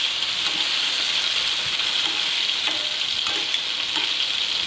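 Pork kidney halves sizzling steadily in hot olive oil in a nonstick skillet on full heat, with a few light clicks as they are turned over with metal tongs.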